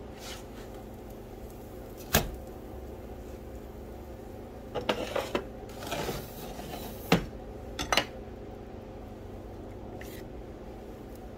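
Slotted spatula knocking and scraping in a skillet and against a plate as a grilled tuna melt is lifted out and set down: a sharp clack about two seconds in, a cluster of small clatters around five seconds, and more clacks about seven and eight seconds in.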